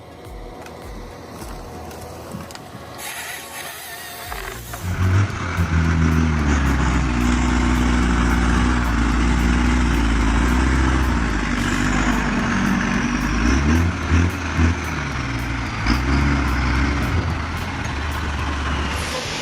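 Heavy machine engine running steadily and loudly, starting about five seconds in after a quieter opening.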